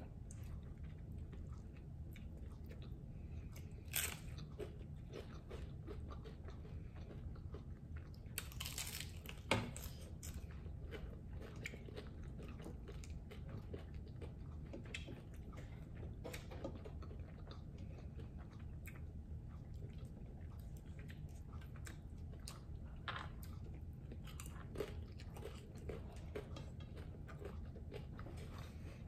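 Eating crunchy hard taco shells: chewing and biting with scattered crisp crackles, the sharpest crunch about nine and a half seconds in, over a low steady room hum.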